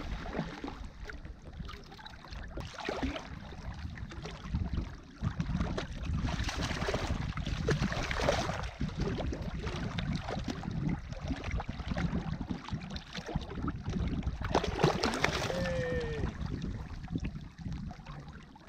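Water sloshing and splashing against the side of a fishing kayak as a small smooth-hound is reeled up and thrashes at the surface beside the hull, in irregular bursts.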